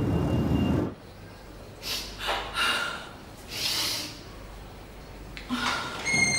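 A person breathing: a few short, noisy breaths about two to four seconds in. Before them, a dense low background noise cuts off suddenly about a second in.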